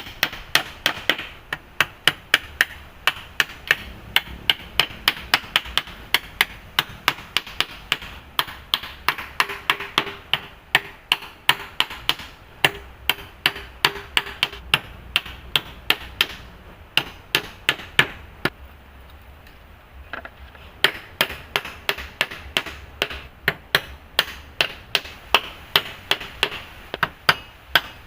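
Rapid, even strikes, about two to three a second, in long runs broken by a pause of a couple of seconds about two-thirds of the way through.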